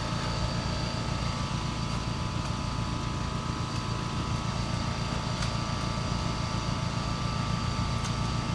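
A steady mechanical hum from a running motor or engine, with a constant thin whine above it and a few faint ticks.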